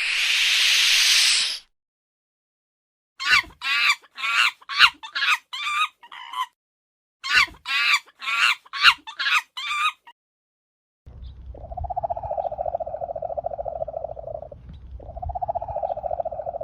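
A sequence of animal sounds: a hiss that stops about a second and a half in, then two runs of short, sharp, clucking-like calls about two a second, then two long steady droning calls over a low rumble.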